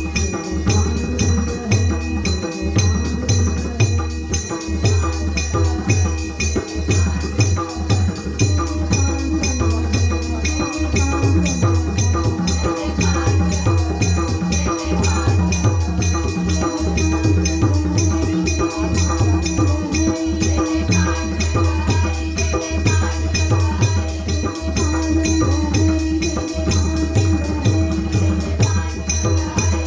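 Marathi devotional bhajan music: a fast, steady percussion rhythm with jingling strokes and a deep drum beat over sustained instrumental tones.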